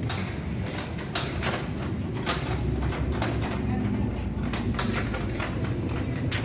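Irregular clicks, knocks and clatter from hands and tools working on a new ATV's parts, over a steady low rumble.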